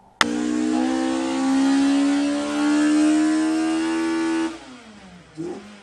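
Car engine accelerating hard, its note rising steadily for about four seconds, then cut off abruptly, followed by a fainter engine note falling in pitch.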